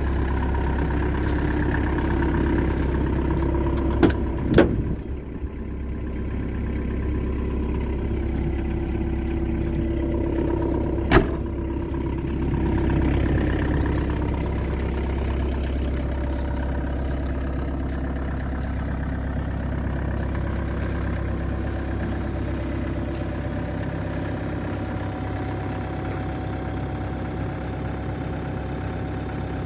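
Diesel engine of a 2019 John Deere 75G excavator running steadily. Two sharp knocks come close together about four seconds in, and another about eleven seconds in.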